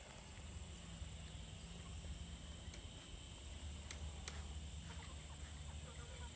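Quiet outdoor ambience: a steady, high-pitched insect drone, with a low rumble on the microphone and a few faint clicks about four seconds in.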